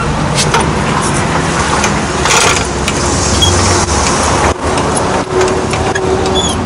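A steel trolley floor jack being positioned under a van's sill: short metal knocks and scrapes over a steady rumble of motor vehicles.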